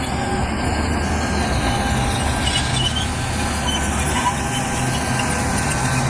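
Heavy diesel machinery running steadily, with a faint high-pitched squeal over the engine note.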